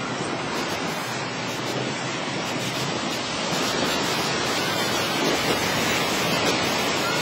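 Steady rush of ocean surf on the beach, getting a little louder about halfway through.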